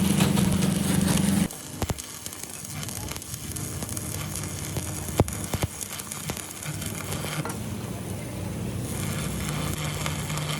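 A loud steady machine hum that cuts off suddenly about a second and a half in, followed by a quieter hum with a few sharp metallic clicks and knocks.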